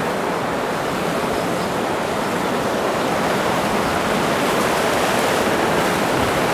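River rapids rushing steadily over boulders, a little louder from about three seconds in.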